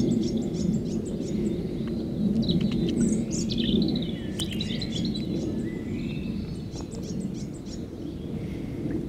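Small birds chirping and twittering in a few short runs of high calls, over a steady low rumble.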